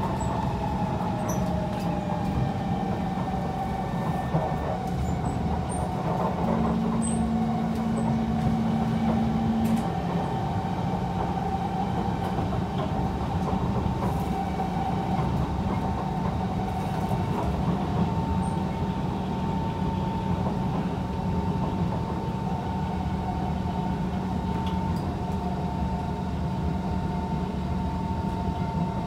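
Kawasaki C151 metro train running at speed, heard from inside the carriage: a steady rumble of wheels on rail with thin steady whining tones over it, one dropping slightly in pitch over the first few seconds.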